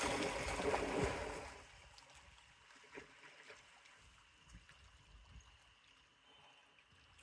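Water sloshing and splashing, loudest for the first second and a half, then dying down to faint trickling and occasional small drips.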